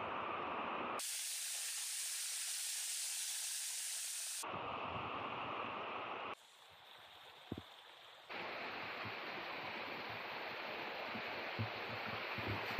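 Rushing water of a mountain gorge stream and small waterfalls: a steady hiss that changes abruptly in tone and loudness several times, one stretch a brighter, higher spray and one much quieter, with a few faint knocks near the end.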